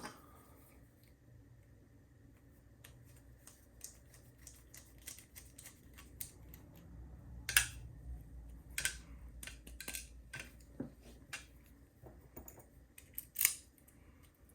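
Scattered small metallic clicks and taps of a Schlage deadbolt lock cylinder and small tools being handled while the cylinder is taken apart, with a few sharper clicks from about halfway through and one near the end.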